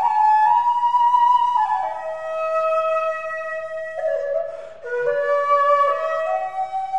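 Background music: a solo flute playing slow, held notes that step down in pitch and then climb back up, with a brief breathy dip about four and a half seconds in.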